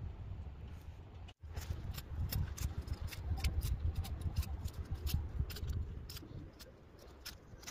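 Small hand trowel digging and scraping in dry, crumbly garden soil: a rapid, irregular run of crisp clicks and gritty scrapes over a low rumble, starting about a second and a half in.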